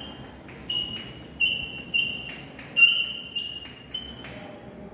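Chalk squeaking on a chalkboard while words are written: a string of short high-pitched squeaks, about one every half second.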